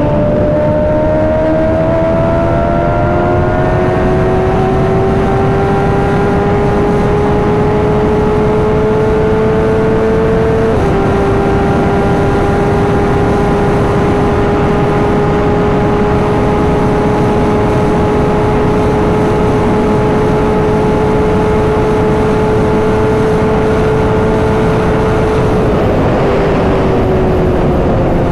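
Suzuki GSX-R600 sportbike's inline-four engine running at high revs on a top-speed run, its pitch climbing slowly, stepping down once with an upshift about eleven seconds in, then holding high before easing off near the end. Heavy wind noise from the rushing air lies over it.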